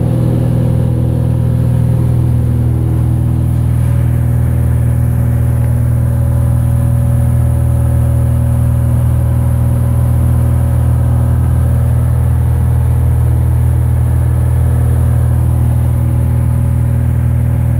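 Steady drone of a Cessna 172's piston engine and propeller, heard inside the cockpit in flight.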